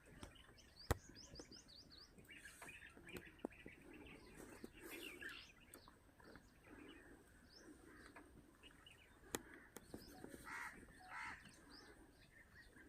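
Several wild birds chirping and calling, with quick runs of falling notes. A sharp click comes about a second in, and another around nine seconds.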